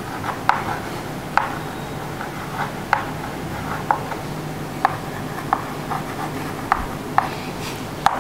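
Chalk writing on a blackboard: about ten sharp, irregularly spaced taps as the chalk strikes and strokes the board.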